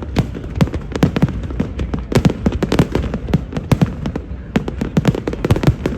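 A dense barrage of aerial fireworks going off, several bangs a second overlapping, with deep booms under sharper cracks.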